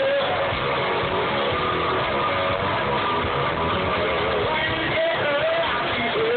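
A band playing live on stage with a singer's voice gliding over it, loud and continuous.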